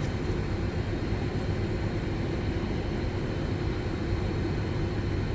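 Steady drone inside a Boeing 747-400 cockpit with its engines at idle: an even rushing noise with a low hum and a faint steady tone over it, unchanging throughout.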